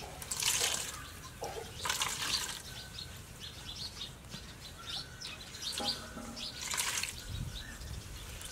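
Coconut milk wrung by hand from grated coconut in a cloth, splashing and trickling into a steel bowl in a few bursts: about half a second in, around two seconds, and around seven seconds.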